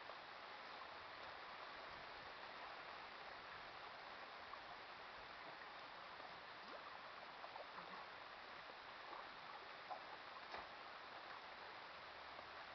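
Faint, steady wash of lake water lapping, with a few small ticks and clicks in the second half.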